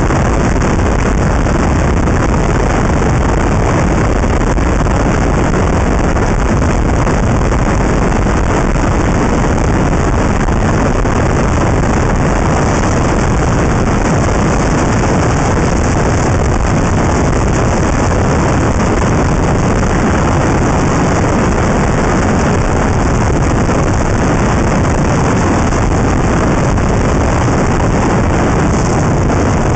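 Honda Integra Type R driving along at a steady speed, heard as a loud, even rush of wind and road noise with no clear engine note.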